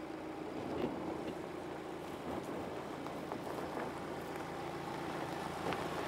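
Mercedes GLC SUV crawling slowly over a dirt forest track: a low steady vehicle hum, with scattered small clicks and crunches from the tyres on stones and twigs.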